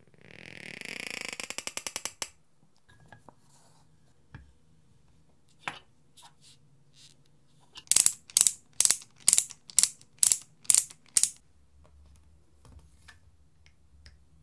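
Metal spiral push drill worked by hand. A fast rattling whir of clicks runs for about two seconds at the start, followed by a few scattered clicks. Then come eight sharp strokes, about two a second, the loudest sound here, as its fine bit drills into a pearl oyster shell.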